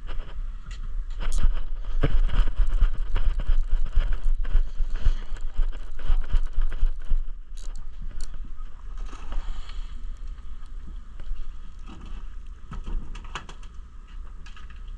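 Boat deck noise: a steady low engine rumble with many irregular clicks and knocks, loudest in the first half.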